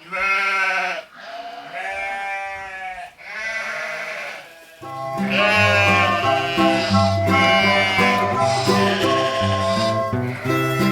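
A sheep bleats three times, each call a second or so long and wavering in pitch. About halfway through, music with a bass line comes in.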